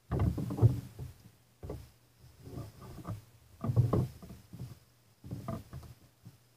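LEGO model of a Brunswick GS-X pinsetter running through its cycle: plastic parts and gears clatter and knock in four bursts, over a steady low hum.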